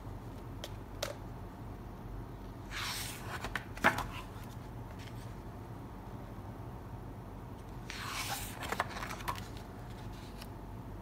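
Pages of a large hardcover artbook turned by hand, twice: each turn is a brief paper swish with a sharp snap, and the first snap is the loudest.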